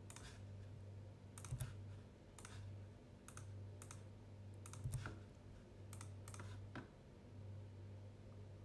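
Sparse clicking of a computer mouse and keyboard: about a dozen short, sharp clicks at irregular intervals, over a faint low hum that swells and fades.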